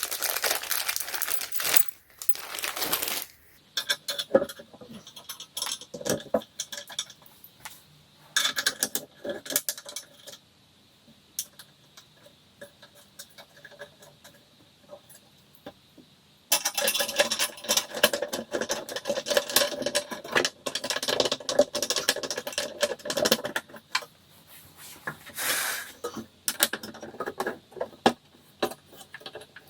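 Small metal screws clinking and rattling as they are handled and driven in by hand with a screwdriver during furniture assembly. A dense run of rapid clicking comes about halfway through and lasts several seconds.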